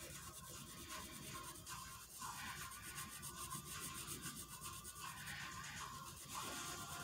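Sharpie fine-point felt-tip marker scratching across paper in rapid back-and-forth strokes as it colours in a solid black area.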